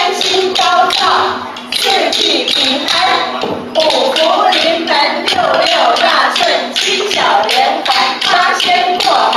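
A woman singing into a microphone, with hand claps along.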